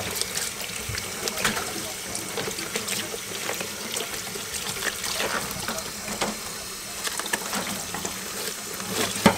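Water running steadily from a tap into a sink, with irregular knocks and clatter of things being handled, and one sharp knock near the end.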